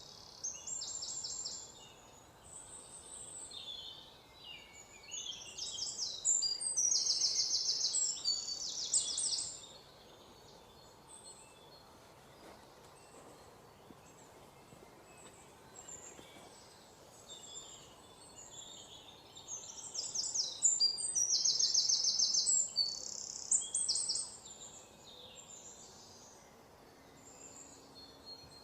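Songbirds singing: several bouts of loud, rapid high-pitched trills a few seconds long, with softer chirps between them over a faint steady hiss.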